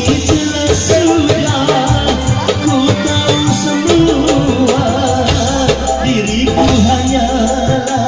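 Loud live band music through a PA: singing into microphones over keyboard, bass and a steady percussion beat.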